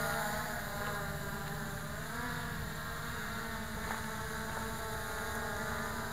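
MJX Bugs 3 quadcopter's brushless motors and propellers buzzing in flight, the pitch shifting briefly about two seconds in as the throttle changes.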